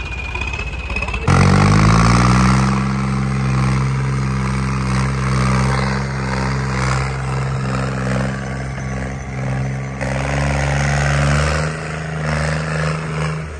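Tractor diesel engine revved up hard about a second in, climbing quickly and then held at high revs, straining to pull a trolley stuck in mud. It cuts off abruptly near the end.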